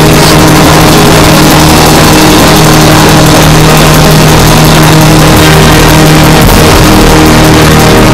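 Loud, heavily distorted soundtrack music: a dense wall of noise over low, held droning notes.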